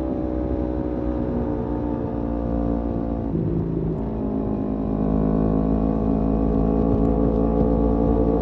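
Kawasaki Z250 motorcycle engine running through an aftermarket SeaPro muffler while cruising. The engine note sinks slightly, breaks up briefly about halfway through, then holds steady and starts to climb near the end.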